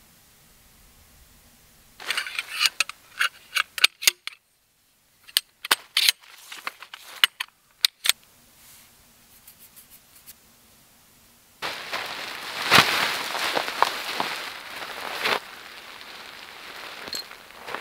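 Metal tent pole sections clacking together in a string of sharp clicks, then nylon tent fabric crinkling for a few seconds as it is shaken out and spread.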